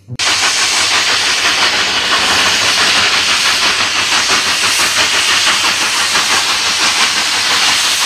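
Coal-fired steam locomotives working a train, their exhaust chuffing in a rapid, steady beat over a constant hiss of steam.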